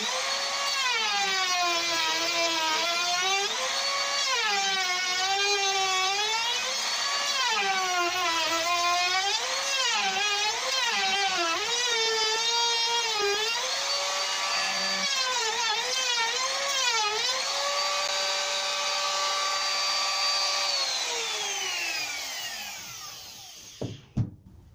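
Makita trim router cutting a finger-pull groove into the edge of a beech door: its high motor whine dips in pitch as the cutter takes load and recovers between passes, again and again. Near the end it runs freely at a steady pitch, then is switched off and winds down, followed by a couple of knocks.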